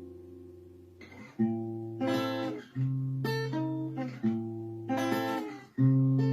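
Acoustic guitar playing an instrumental break between verses of a bard song. A chord rings and fades over the first second, then a run of chords is struck about every half second to a second, each with a bass note.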